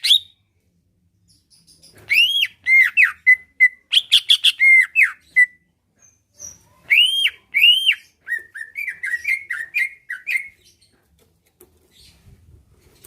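Cucak ijo (green leafbird) singing loud, clear whistled phrases of arched, swooping notes. The first phrase starts about two seconds in, and a second starts about seven seconds in, ending in a run of quicker short notes before it trails off.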